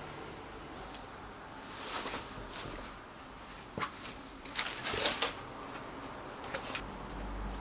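Rustling and handling noises with a series of light clicks and knocks, scattered and irregular, the loudest cluster about five seconds in.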